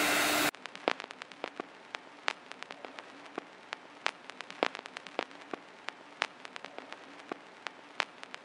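Electric hand mixer running with a slowly rising hum, cutting off abruptly about half a second in. Then sparse, irregular sharp clicks and crackles over a faint hiss.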